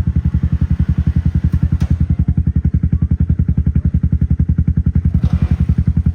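Off-road side-by-side engine running steadily with an even, rapid pulse of about ten beats a second.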